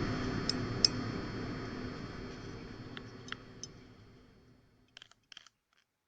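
Steady background noise and low hum of a recorded room fading out over about five seconds, with a few light sharp clicks along the way and near the end; then silence.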